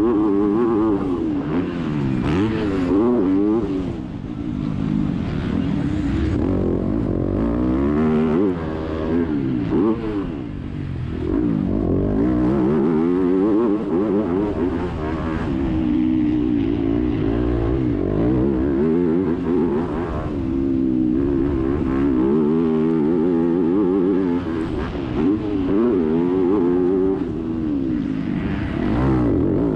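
Yamaha YZ250F four-stroke motocross engine heard from on the bike at racing speed, its pitch rising and falling over and over as the rider opens and shuts the throttle and shifts through the gears, with wind and dirt rush underneath.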